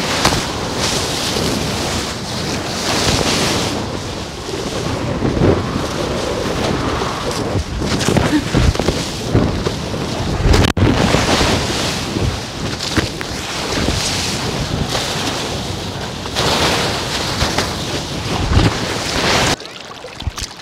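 Ocean waves breaking and whitewater rushing in repeated surges, with wind buffeting the microphone.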